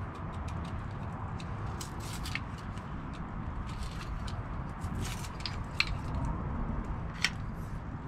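Scattered light clicks and taps of a camping cot's plastic-and-metal leg pieces being handled and pushed together, over a steady low rumble.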